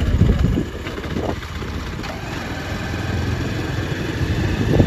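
Vehicle engine running at low speed while the vehicle moves along a road, a steady low rumble with road and wind noise. There is a brief louder swell just before the end.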